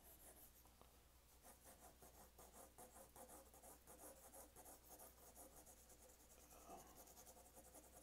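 Faint scratching of a 4B graphite pencil shading on drawing paper, in quick back-and-forth strokes about five or six a second, thinning out near the end.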